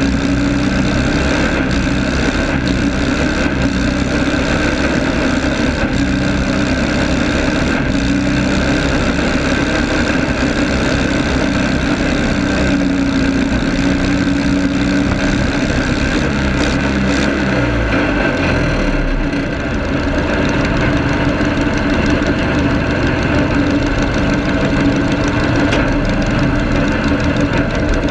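Garden tractor engine running loud and steady, heard close up from its hood. About two-thirds of the way through, its pitch dips briefly, then it settles and runs steadily again.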